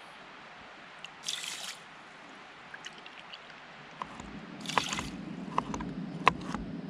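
Water trickling from a plastic bottle into a measuring cup and onto dry rice in a steel pot, with a brief louder pour about a second in. From about four seconds in, a knife chopping broccoli on a plastic cutting board: sharp single taps a fraction of a second apart.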